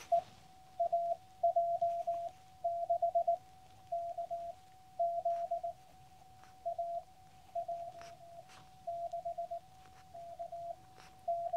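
Morse code (CW) signal received on a QCX Mini transceiver: a single mid-pitched beep keyed in groups of dots and dashes, a chaser sending his call sign AJ6KZ and summit reference W6/SC-005. A fainter steady tone sits just above it.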